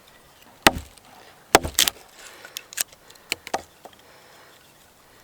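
Axe chopping wood to split small pieces into kindling: three sharp strikes, the last two close together, then several lighter knocks as the split sticks fall.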